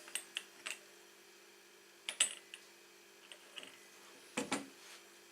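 Light clinks and knocks of small metal items being handled: a few small ticks at first, a clatter about two seconds in, and a louder knock a little past four seconds, over a faint steady hum.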